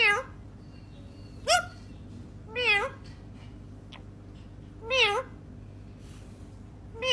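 Five short meows a second or two apart, each with a wavering pitch, over a faint steady hum.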